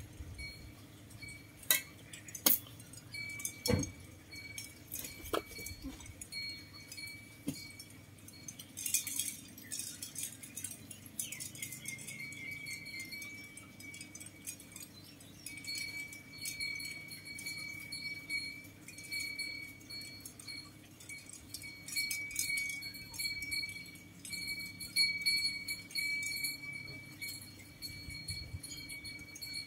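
Garden work: a few sharp knocks in the first few seconds and rustling as pots and soil are handled. Under them runs a steady high-pitched ringing tone that comes and goes.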